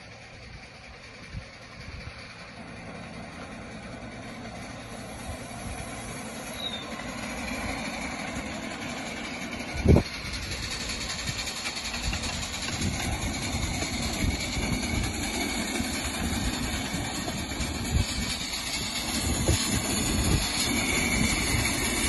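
5-inch gauge model of an early steam locomotive, with its driving trolley, running on miniature railway track and growing steadily louder as it approaches: a continuous rumble and clatter of small wheels on the rails, with a hiss on top. A single sharp knock comes about ten seconds in.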